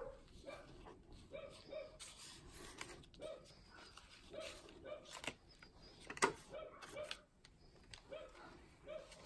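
A dog whimpering in short, repeated high whines, over the rustle and clicks of card pages and an envelope flap being handled in a spiral-bound album, with one sharp click about six seconds in.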